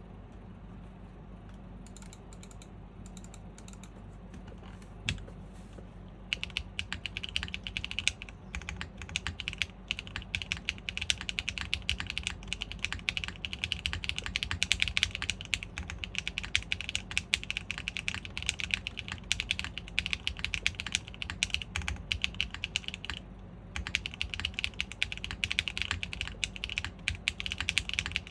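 Typing on a custom mechanical keyboard: a GAF 910 PC with a top-mounted polypropylene plate, Strawberry Wine V2 switches and PBT keycaps. After a few seconds of near-quiet with an odd single click, fast, continuous keystrokes begin about six seconds in, pause briefly about three-quarters of the way through, then carry on.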